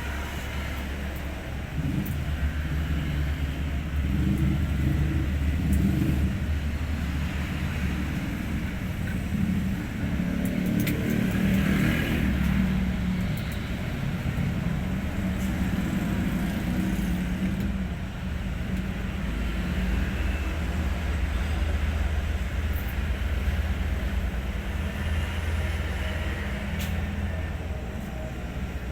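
Hino 500 New Generation truck's diesel engine running steadily with a low rumble, its pitch shifting slightly over time.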